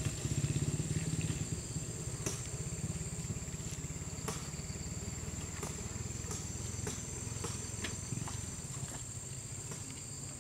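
An engine idling with a low, steady rumble that slowly fades, with scattered sharp clicks and knocks from digging in the mud, over a constant high-pitched whine.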